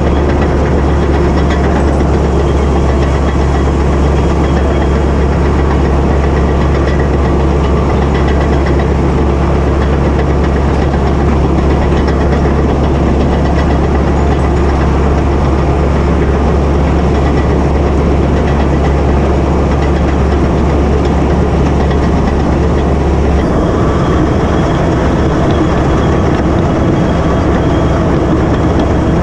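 Caterpillar D8K crawler bulldozer's six-cylinder diesel engine running steadily as the dozer plows snow. The deep low drone shifts about 23 seconds in.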